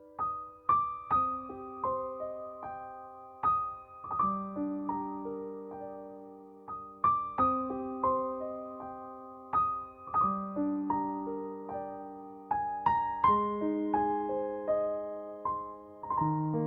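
Background music: slow, gentle solo piano playing soft broken chords, each note struck and left to ring out.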